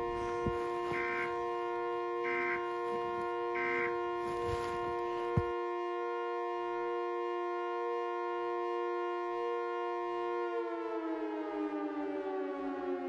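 A siren-like chord of several steady tones from an emergency-alert mock-up, with three short EAS end-of-message data bursts about 1.3 seconds apart over it in the first few seconds. About ten seconds in, all the tones start sliding down in pitch together, like a siren winding down.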